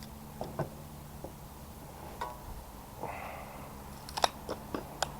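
Freshly sharpened garden loppers being test-cut: a series of short, sharp snips and clicks as the blades close, with a brief rustle around the middle and the sharpest clicks near the end.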